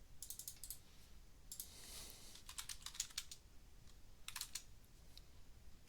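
Faint typing on a computer keyboard: several quick runs of keystrokes with short pauses between them.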